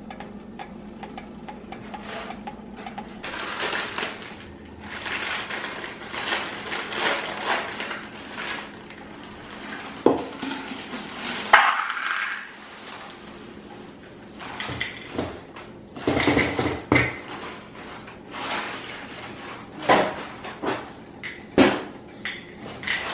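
Handling noises: irregular clinks, knocks and scraping of household objects being moved about, with a faint low hum under them.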